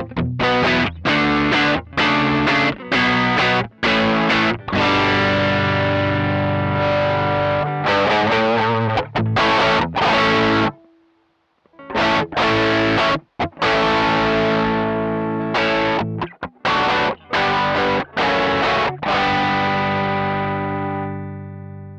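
Suhr Classic S electric guitar played through a Joyo American Sound amp-simulator pedal with an overdriven tone. It plays a run of chord stabs with short breaks, pauses briefly about halfway, then plays more chords, and the last chord is left ringing and fades near the end. This is the pedal's drive interacting with its voice control.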